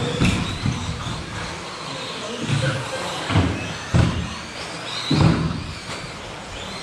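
1/10-scale electric 2WD off-road RC buggies racing on an astroturf track: motors whining up and down over tyre noise, with repeated dull thuds and knocks of the cars on the track about every second.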